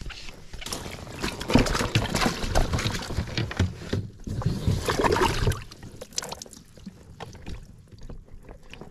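Water splashing as a hooked trout thrashes at the surface and is scooped into a landing net, busiest in the first half, then quieter dripping and small handling knocks.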